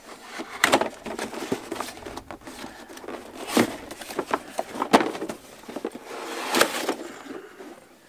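Cardboard box being opened by hand: flaps and lid rubbing and scraping, with irregular sharp knocks of cardboard.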